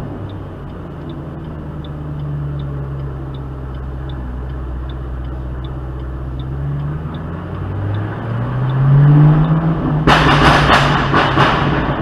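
2008 Ford Mustang GT's 4.6-litre V8 through an SLP Loudmouth exhaust: running low and steady, then revving up about eight seconds in. From about ten seconds in, a loud rapid burst of exhaust pops and crackles.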